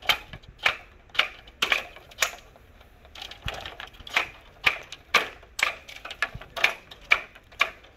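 Bamboo being split by hand: a run of sharp cracks, about two a second, with a pause of about a second in the middle.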